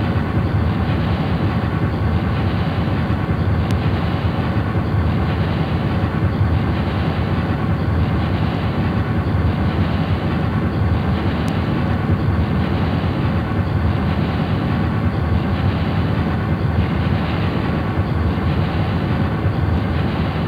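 Experimental drone-noise music recorded live to cassette tape: a dense, steady, rumbling wash of noise, heaviest in the low end and dull at the top.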